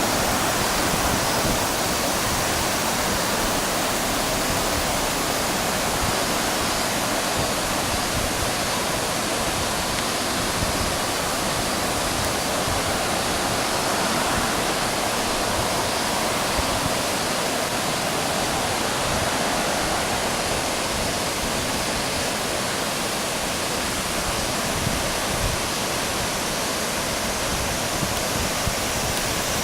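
Waterfall on the Houki River, heavy flow after rain, a steady rushing roar of falling water.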